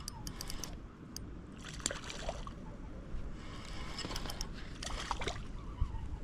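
Water sloshing and splashing beside a kayak as a hooked fish is brought in, with short splashes about two and five seconds in and small high clicks of gear handling.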